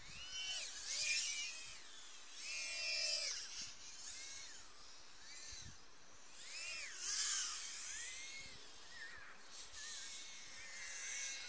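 Mobula 7 tiny whoop quadcopter in flight, its small motors whining high. The pitch arcs up and down with the throttle, swelling louder several times.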